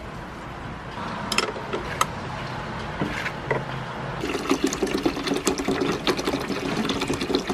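Water poured from a plastic bottle glugging steadily into the plastic water tray of a wet tile saw, starting about four seconds in. Before it, a few light clicks as the diamond blade is fitted onto the saw's arbor.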